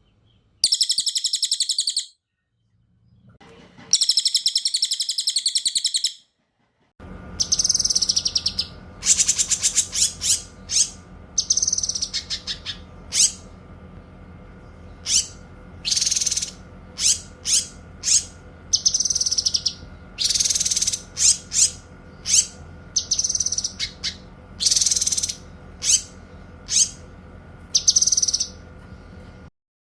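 Recorded songbird song, cililin and cucak kinoy: two buzzy high trills of about a second and a half each, then, over a steady background hum, a long run of short, sharp high calls and phrases.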